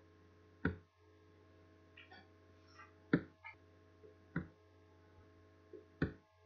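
A steady low electrical hum, broken by four short, sharp plucked-sounding clicks spaced one to three seconds apart, with a few fainter blips between them.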